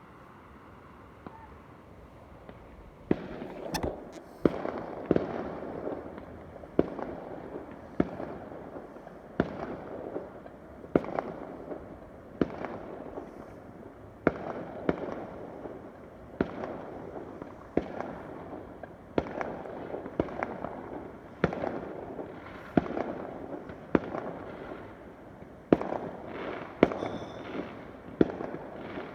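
Fireworks going off: sharp bangs about every second and a half, starting about three seconds in, each with a fading tail.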